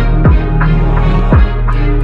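Background electronic music with a steady bed and a deep bass drum hit twice, each one falling in pitch.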